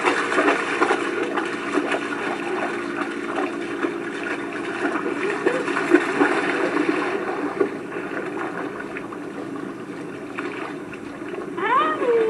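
German Shepherd splashing through shallow lake water, with many quick splashes that thin out about halfway through to gentle lapping once the dog stands still. Near the end there is a short falling vocal sound.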